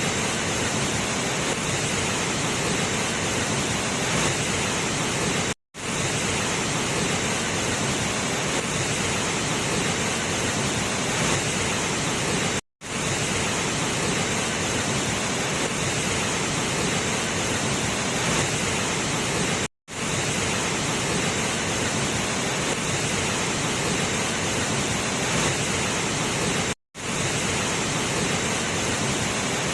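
Waterfall: a steady rush of falling water, broken by four brief silent gaps about seven seconds apart where one clip cuts to the next.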